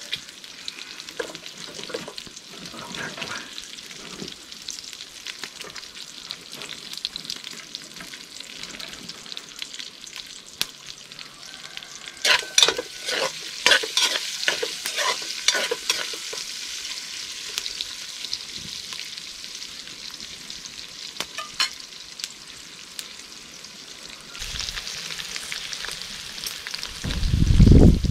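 Diced pork fat (salo) sizzling as it renders in a silumin kazan over a wood fire, with a run of clinks and scrapes from a spoon stirring it against the pot about halfway through. A low rumble rises near the end.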